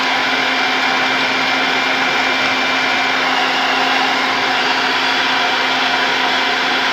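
Hair dryer running on its hot setting, blowing on a metal eyelash curler to warm it: an even rush of air with a steady motor whine.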